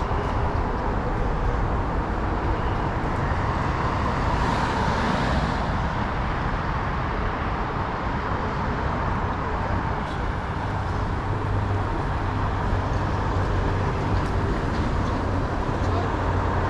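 Steady road noise of a vehicle on the move: a low engine and tyre hum under an even rushing noise.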